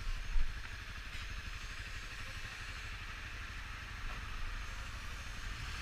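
Honda 250 motorcycle engine running steadily at low revs, with hiss over the microphone and one short louder knock about half a second in.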